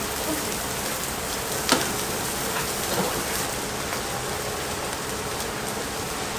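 Steady rushing hiss of a busy large-scale kitchen, with one sharp clack about two seconds in.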